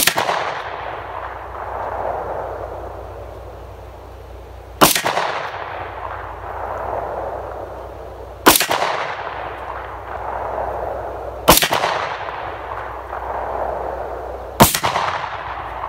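Tokarev TT-33 pistol (7.62×25mm) firing five single shots, spaced three to five seconds apart. Each shot is followed by a long rolling echo.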